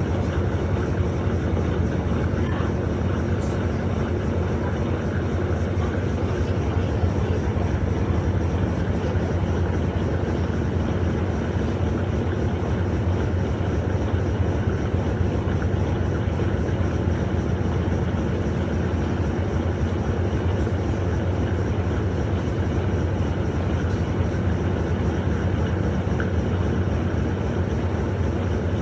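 Washing machine running with a steady low mechanical drone.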